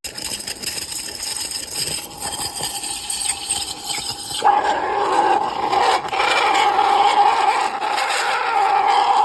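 Espresso machine steam wand hissing, turning louder about halfway through into a steady squealing hiss.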